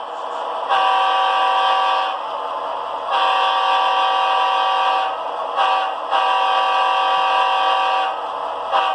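Nathan K5H locomotive air horn sound sample played by a model train's Tsunami sound decoder: a chord of several steady tones blown long, long, short, long, the grade-crossing pattern.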